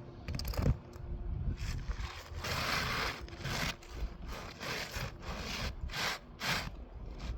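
A series of scraping strokes against asphalt roof shingles as they are worked loose: one longer scrape about two and a half seconds in, then shorter, quicker ones.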